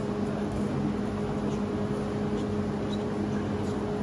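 Steady machine hum: an even rushing noise under a constant low drone that does not change.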